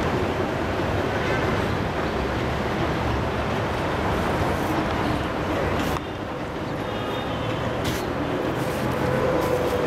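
Steady city street traffic noise: a continuous rumble of passing vehicles.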